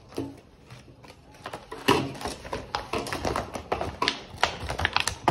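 Stiff clear plastic blister packaging crackling and clicking as it is handled and pulled apart. The crackling is sparse at first and becomes dense and irregular from about a second and a half in.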